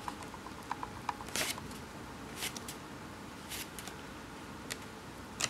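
Pages of a paperback picture book being turned by hand, with a handful of short paper swishes about a second apart and small paper ticks between them.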